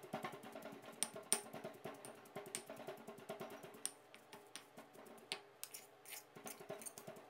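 Granite pestle pounding a soft shrimp-paste, shallot and dried-shrimp mix in a granite mortar: faint, quick knocks, several a second, thinning out after about four seconds, with a spoon scraping through the paste near the end.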